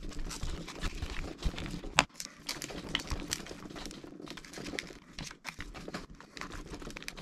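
2015 13-inch MacBook Pro Retina battery cells being pried and lifted off the glue that holds them to the case: irregular crackling and peeling of adhesive with small clicks and scrapes, and one sharp click about two seconds in.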